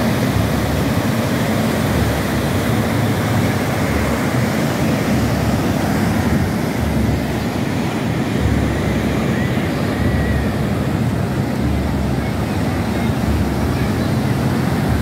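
Ocean surf breaking and washing in a steady rush, mixed with wind buffeting the microphone.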